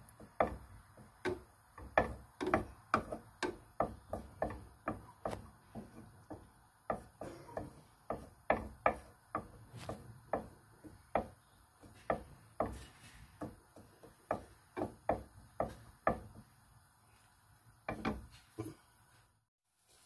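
Wooden spatula stirring onion and garlic in a glazed clay dish, knocking and scraping against the clay about two to three times a second. The strokes thin out after about sixteen seconds.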